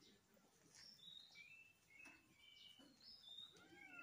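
Kittens and their mother cat: faint, short, high-pitched squeaks and mews come every half second or so. A longer meow that bends up and down starts near the end.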